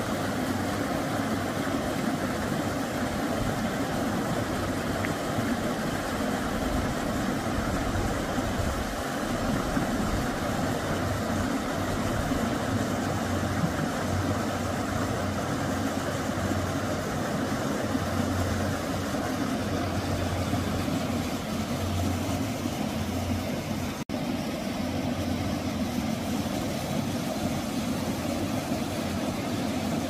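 Steady rushing of a mountain stream, an even wash of water noise that dips out for an instant once near the end.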